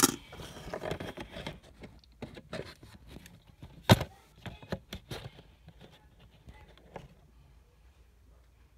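Small plastic clicks and rattles as a Beyblade Burst Hell Salamander layer is handled and worked to switch modes, with hands brushing close to the microphone. One sharper click comes about four seconds in, then the handling thins out.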